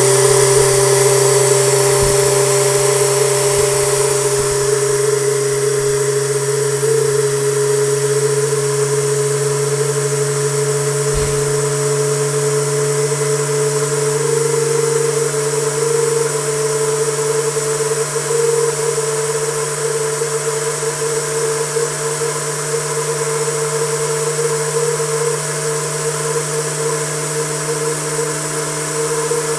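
Homemade Tesla turbine spinning at 15 psi near 9,000 rpm. It gives a steady whine that creeps slowly up in pitch as it keeps gaining speed, over a hiss.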